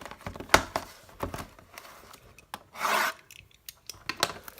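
Cardboard trading-card box being handled and opened: several sharp taps and clicks, the loudest about half a second in, and a short scraping rub near the three-second mark.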